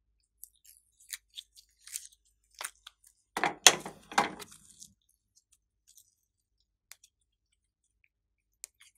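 Soft purple slime crackling and squelching with small sticky clicks as hands squeeze it out of a plastic container and stretch it, with a louder run of wet pops about three and a half seconds in.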